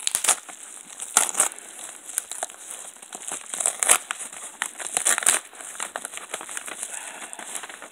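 Yellow padded mailer envelope being handled and opened by hand: its paper crinkles and crackles, with irregular sharp bursts.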